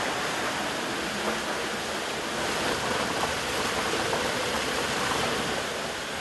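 Steady rush of a rocky river flowing over boulders.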